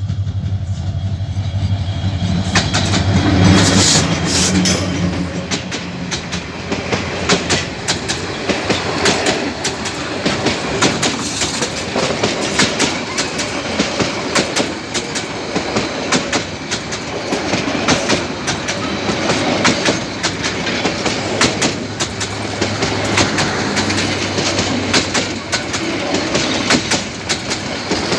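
A diesel locomotive hauling a passenger train passes close by at speed. Its engine drone is loudest about three to four seconds in, then gives way to the coaches' wheels clattering over the rail joints in a steady run of clicks.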